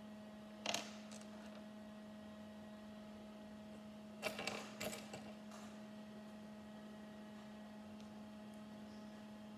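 Small plastic Lego minifigure pieces clicking and rattling as they are handled on a table: one short clatter about a second in and a quick run of clicks around the middle. A faint steady electrical hum sits underneath.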